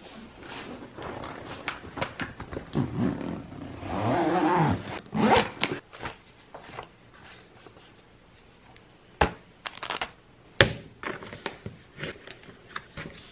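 Packing and handling sounds: a soft suitcase's zipper drawn with a rasping, uneven sound, then scattered rustles and clicks, with two sharp knocks in the second half.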